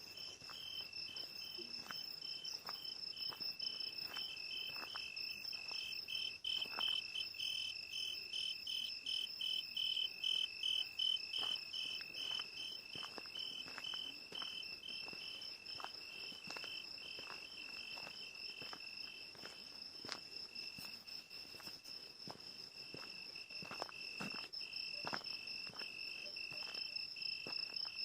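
Crickets chirping: a steady high trill, with a second, pulsing chirp over it that stops about two-thirds of the way through. Faint scattered clicks.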